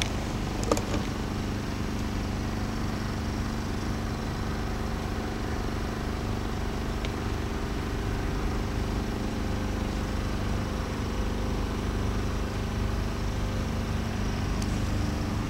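Steady low background rumble with a faint, even hum through it.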